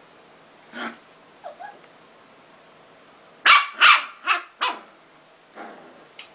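Two puppies play-fighting and barking: a single yap about a second in, then a quick run of four loud, sharp yips and barks in the middle, and a couple of fainter yaps near the end.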